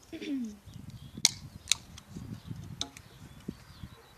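Aluminium V-Max energy-drink can being opened: a couple of sharp metallic clicks from the pull tab a little over a second in, with low knocking and handling noise as the can is lifted to drink.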